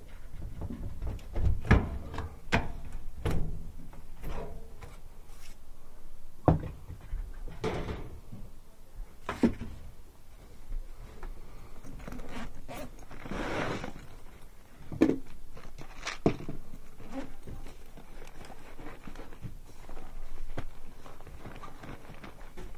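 Scattered knocks, clunks and clatter of hand tools being handled at a sheet-metal air handler, with a stretch of rustling about midway as a tool bag is opened and searched.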